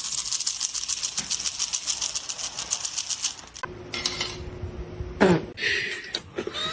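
Rapid rattling clatter, like dishes or cutlery being jostled, for about three and a half seconds, then a few separate knocks.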